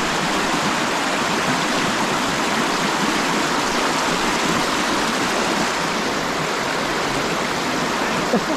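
River water rushing and churning over a shallow rock ledge in a riffle: a steady, loud rushing.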